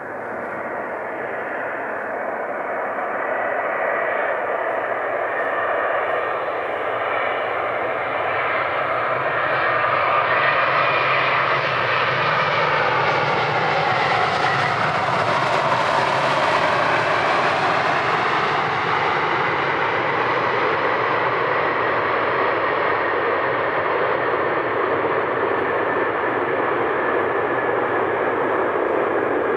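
Airbus A350-900 jet airliner's Rolls-Royce Trent XWB engines on landing approach. The whine grows louder as the aircraft nears and falls in pitch as it passes, about halfway through. It then carries on steady and loud as the aircraft rolls out along the runway.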